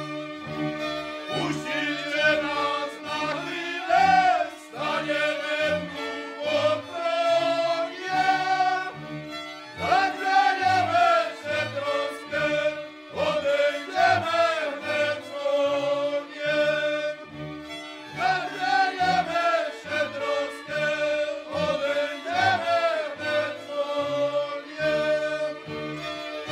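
Goral folk band of several fiddles and a cello playing a lively carol tune, with the cello giving a steady beat of short low strokes. A group of men's voices sings along over the fiddles.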